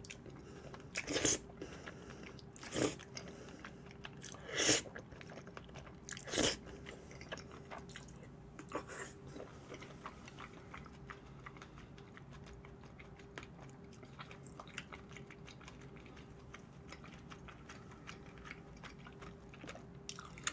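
A person eating close to the microphone: four louder mouthfuls in the first seven seconds, then softer chewing sounds.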